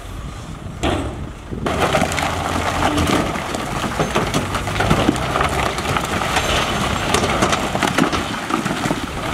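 Big rocks tumbling and crashing together, a dense clatter of many overlapping impacts that sets in about two seconds in and keeps going, after a single short knock about a second in.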